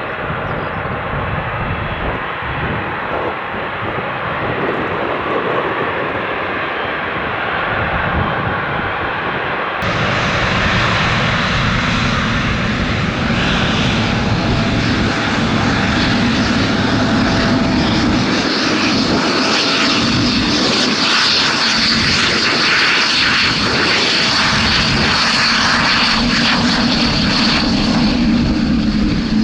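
Boeing 777 jet engines running at high power, a steady loud roar with a hiss, which turns louder and brighter abruptly about ten seconds in.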